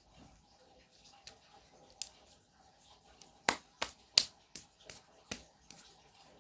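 Slime being squeezed and kneaded by hand, giving a string of sharp pops and clicks. They come singly at first, then about six close together over the middle two seconds.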